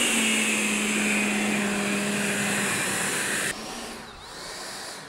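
Twin electric ducted fans of a large RC Gloster Meteor model running during a taxi test: a loud, steady whine over rushing air, its pitch shifting a little with the throttle. About three and a half seconds in it drops sharply to a much quieter level as the fans are throttled back.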